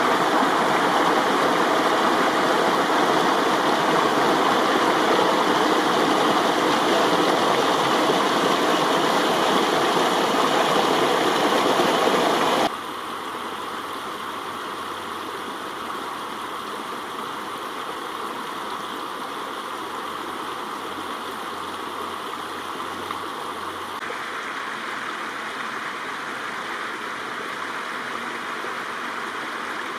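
Spring-fed stream water running in a steady rush. About 13 seconds in it drops suddenly to a softer, quieter flow.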